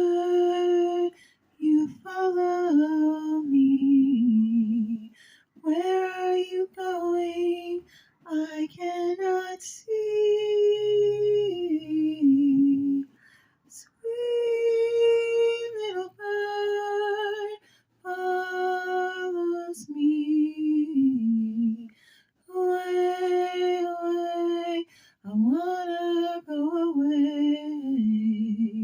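A high voice singing a slow, gentle melody in short phrases of one to three seconds, with the pitch often sliding down at the end of a phrase and brief pauses between phrases.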